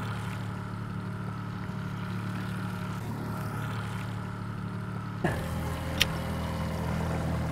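Outboard motor of a small trolling boat running at a steady pitch, heard as an even hum. About five seconds in the sound gets louder and brighter, with more water noise, and a single sharp click follows about a second later.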